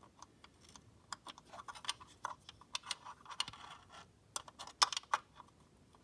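Irregular small clicks and taps as a hand works the small upper filter of a JF011E CVT onto its shaft inside the transmission housing, feeling it into place.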